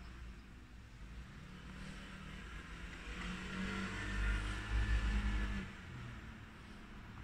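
A motor vehicle passing by, growing louder to a peak about four to five seconds in and then falling away quickly.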